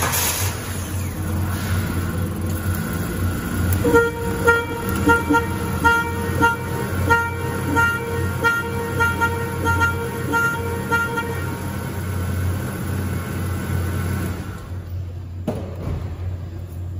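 Car horn beeping in short pulses, about two a second, in step with the turn-signal flasher it has been jumpered to. The beeping starts about four seconds in and stops after about seven seconds, over the steady hum of the car's engine idling.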